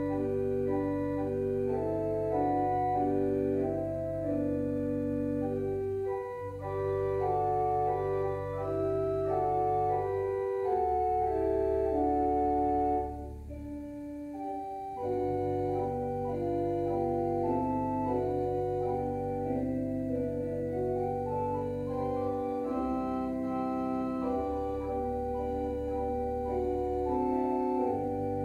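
Organ music: a slow melody of held chords over sustained low bass notes, with the bass falling away and the level dipping briefly about halfway through.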